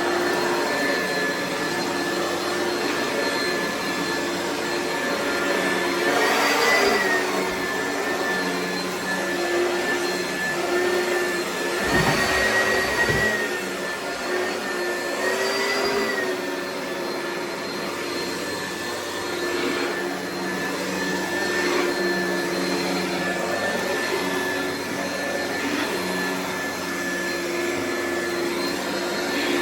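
Oreck vacuum cleaner running steadily. Its motor pitch rises briefly, with a rush of extra noise, about a quarter, two fifths and halfway through.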